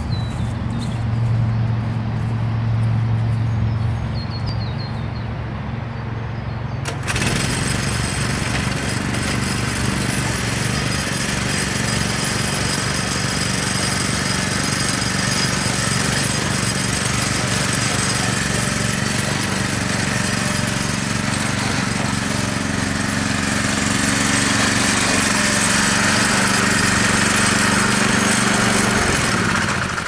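Small petrol engines of a rubber-tracked motorised wheelbarrow carrying a wood chipper, running steadily. About seven seconds in the sound turns suddenly louder and harsher and holds as the machine drives across the grass, then drops away near the end.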